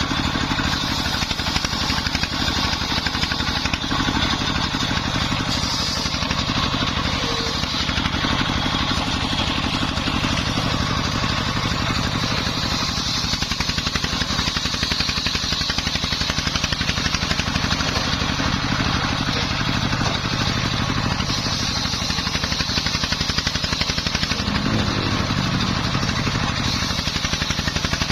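Dongfeng 24 hp single-cylinder diesel engine running steadily at speed, driving a homemade circular saw rig.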